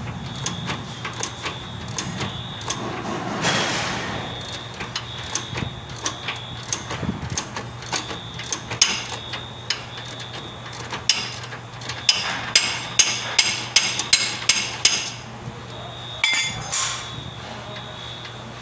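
Repeated hammer blows during suspension work: scattered single strikes, then a quick run of about eight hard blows at roughly three a second near the end.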